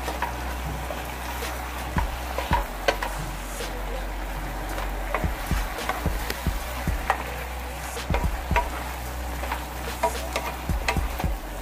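Beef and Chinese kale stir-frying in a nonstick frying pan: a steady sizzle, with irregular clicks and scrapes of a wooden spatula tossing the food against the pan. A low steady hum runs underneath.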